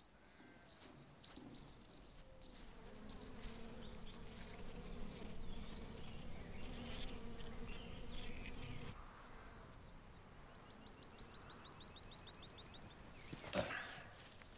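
Bumblebees buzzing steadily among flowering herbs, with small birds chirping. The buzz fades about two-thirds of the way through, a fast ticking trill follows, and one short sharp crack comes near the end.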